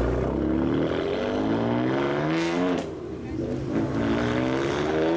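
Lowered BMW M4's twin-turbo straight-six accelerating hard away, its pitch climbing for about two and a half seconds before dropping off. A second rising engine climb follows near the end.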